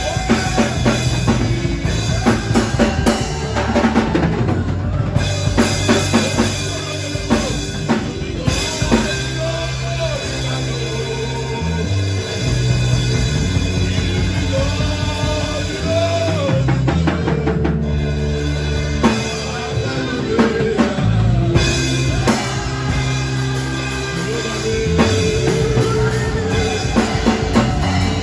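Instrumental music with a drum kit keeping a steady beat over a moving bass line and sustained chords.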